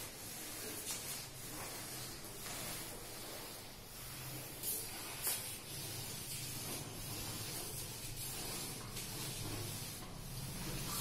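Blackboard duster scrubbing chalk writing off a blackboard: a steady rubbing hiss, with a couple of sharper strokes about five seconds in.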